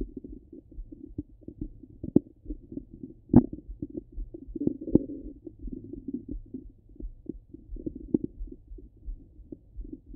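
Stomach and bowel sounds heard through a stethoscope on the belly: irregular low gurgles and clicks over a faint low hum, with one louder pop about three seconds in and a longer rumble around five seconds in.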